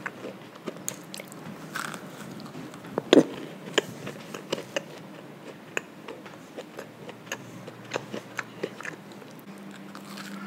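Close-miked chewing of a Fruit Loops–topped mini donut: irregular wet mouth clicks and soft crunches, the loudest about three seconds in, with a fresh bite near the end.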